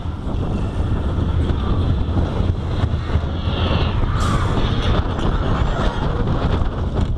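Slinky Dog Dash roller coaster train running along its steel track: a steady low rumble of wheels and rushing air. A brief high-pitched sound rises over it about three and a half seconds in.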